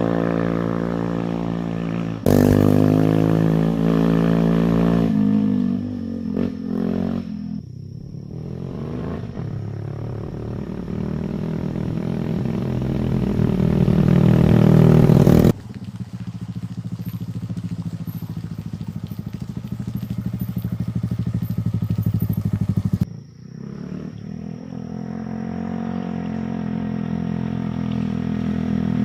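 An engine running loudly at a steady pitch. Its loudness builds over several seconds and then drops off suddenly, twice.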